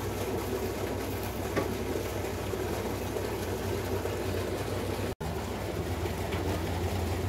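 A steady low mechanical hum, like a motor or engine running, that cuts out for an instant about five seconds in.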